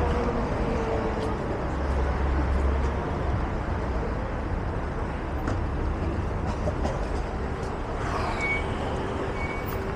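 Street ambience of road traffic: cars running past with a steady low rumble under the murmur of pedestrians' voices. A brief high squeal and short high tones come near the end.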